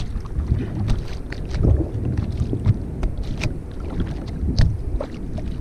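Wind buffeting the microphone over water lapping against a plastic sit-on-top kayak's hull, with scattered small irregular clicks and knocks.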